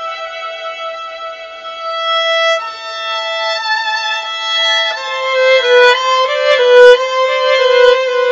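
Background music: a violin playing slow, held notes with vibrato, growing louder from about halfway through.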